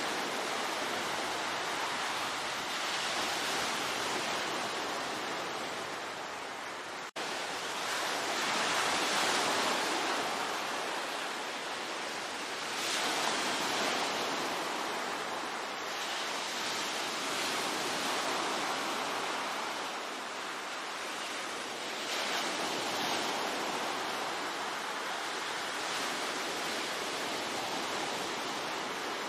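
Sea waves breaking and washing on the shore, a continuous surf that swells and eases every few seconds. The sound cuts out for an instant about seven seconds in.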